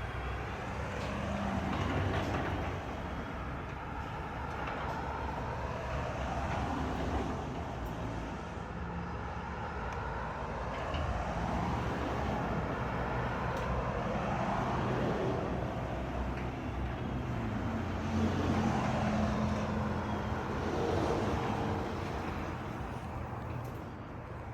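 A new 16x7 non-insulated steel pan garage door being driven along its tracks by an electric opener: steady motor hum with the rumble of the rollers and panels.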